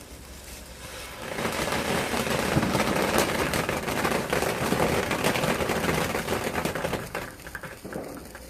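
A firework going off with rapid, dense crackling and popping. It starts about a second in, keeps up for about six seconds, then thins out and dies away.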